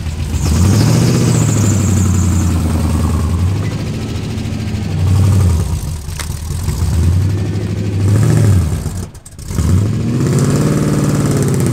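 LS V8 engine of a Chevy K20 pickup revving up and dropping back about four times as the truck drives off over dirt. The engine sounds broken: the owner believes it has spun a cam bearing, after first suspecting a lifter.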